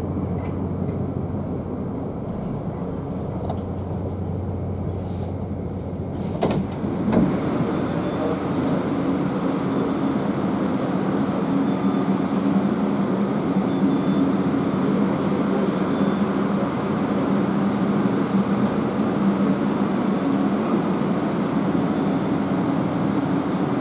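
Moscow Metro train running between stations, heard from inside the car: a steady rumble of wheels and motors. A sharp knock comes about six and a half seconds in, and after it the rumble grows louder and fuller.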